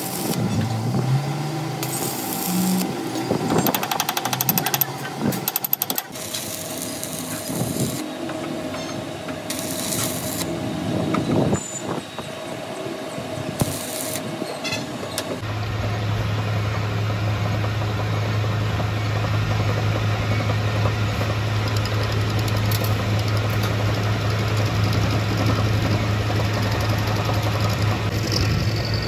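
Electric arc welding on a steel CV-joint shaft: an uneven crackle that starts and stops every second or two as the welding rod strikes and breaks the arc. About halfway through it gives way to a metal lathe running with a steady low hum, turning down the fresh weld.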